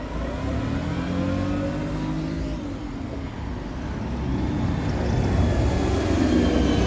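Bus diesel engine running and pulling away, its pitch rising as it accelerates and getting louder toward the end; the engine does not sound very well.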